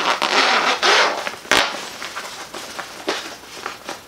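Fabric dog bed cover rustling and rubbing as a slab of foam is pushed into it, with one sharp click or knock about a second and a half in.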